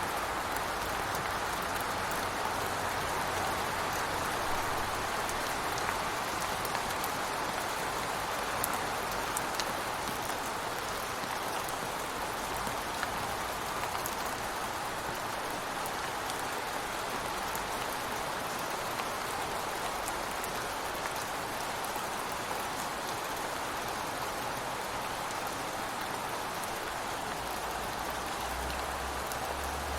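Steady rain falling: an even, continuous hiss with scattered sharp drop ticks.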